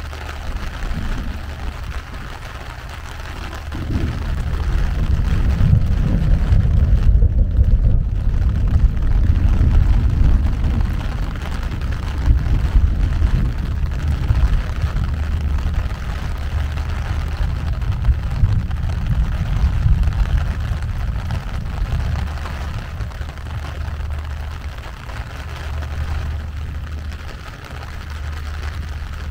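Rain falling steadily with a low, jagged rumble underneath that swells about four seconds in and eases off after about twenty seconds.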